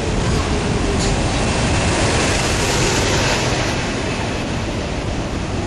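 Metro-North commuter train cars passing close along the platform: a loud, steady rumble of wheels on the rails.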